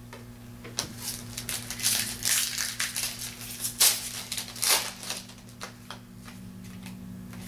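Topps Chrome trading cards being flipped and slid through the hands, an irregular run of quick rustles and clicks, over a steady low hum.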